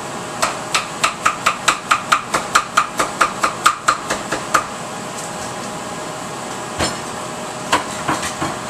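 Large knife chopping a cucumber on a wooden cutting board: a quick, even run of about five cuts a second for roughly four seconds, then a few scattered knocks on the board.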